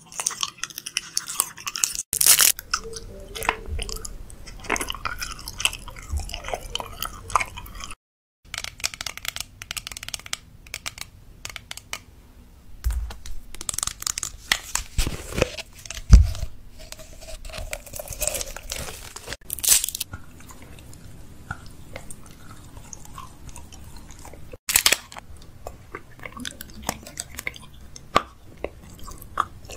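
Close-miked biting, crunching and chewing of sweets, among them a piece of chocolate, in a run of short clips broken by brief silent cuts.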